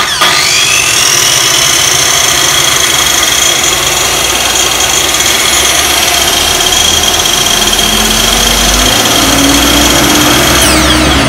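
Makita LS1040 miter saw's universal motor, fitted with a new DCA replacement armature, switched on and run up: a whine that rises to full speed in about a second, then runs steadily at speed. Near the end the pitch starts to drop as the motor winds down.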